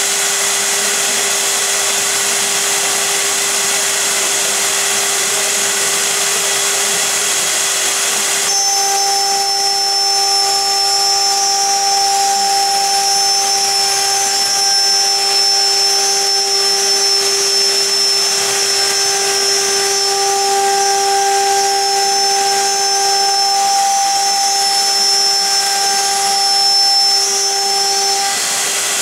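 FL-1325 CNC router's high-speed spindle running and routing a wooden panel, a steady whine over the hiss of the cut. About eight seconds in the sound changes, and higher steady whining tones join in.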